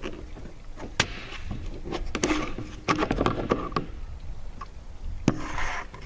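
Knocks and clatter of plastic drain pipe being handled and fitted into a tank cap, with a sharp knock about a second in, a run of smaller knocks and scrapes in the middle, and another sharp knock near the end.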